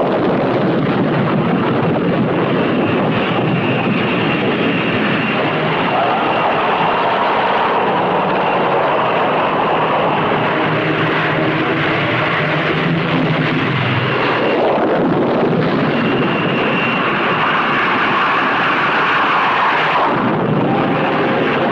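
Jet aircraft engines running at high power for catapult launches on a carrier flight deck: a loud, steady rush with a faint high whine that comes and goes.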